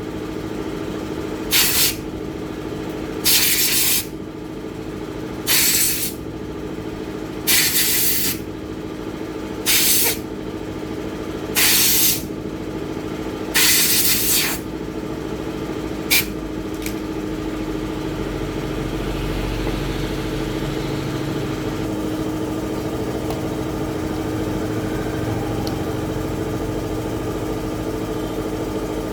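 Short hissing blasts, like air or spray, repeat about every two seconds for the first half, over a steady mechanical hum. A single sharp click comes a little past the middle, after which only the hum continues.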